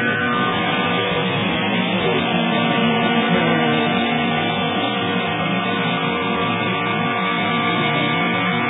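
Music with guitar, playing steadily with no breaks.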